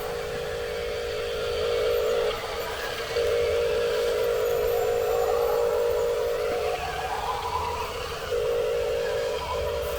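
Electric motor and gearbox of a radio-controlled construction toy whining steadily, stopping and starting again several times, with a fainter whine rising in pitch about seven seconds in.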